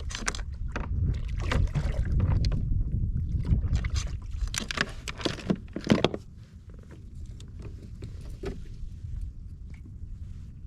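Knocks and clatter of handling gear on a fishing kayak over wind rumble on the microphone, busiest in the first six seconds and quieter after that.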